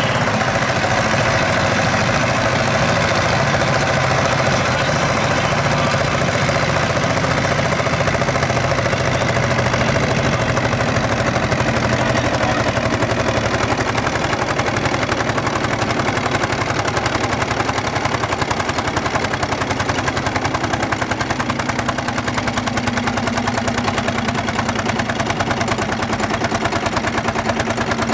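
Lanz Bulldog's single-cylinder hot-bulb two-stroke engine working hard under load, a fast, even train of exhaust beats, with a second tractor's diesel engine running alongside.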